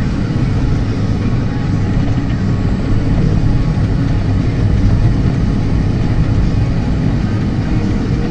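Steady low engine and road rumble inside a moving vehicle's cab.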